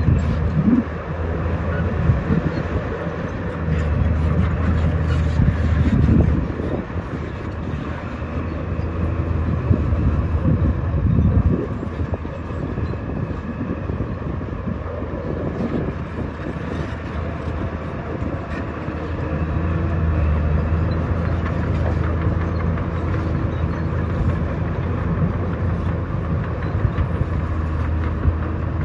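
Diesel engine of heavy earthmoving machinery running under working load, its low drone swelling and easing several times, with scattered metallic clanks and clatter.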